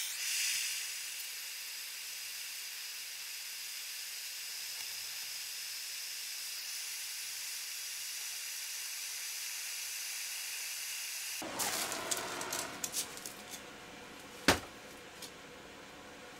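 Steady hiss of a hand-held heating tool blowing onto the hub motor's seized screws to free them, cutting off abruptly about eleven seconds in. Then scattered clicks and one sharp knock as tools are handled.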